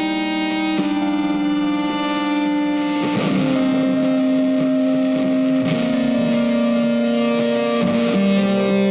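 Background music: distorted electric guitar holding sustained notes, changing chords every few seconds.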